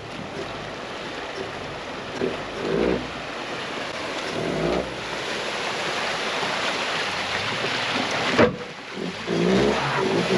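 Off-road vehicle driving through a deep water hole: water rushing and splashing, with the engine revving in short bursts and a single sharp thump about eight seconds in.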